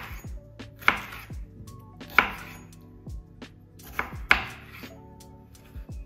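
A knife chopping on a cutting board: four sharp strikes at uneven spacing, over soft background music.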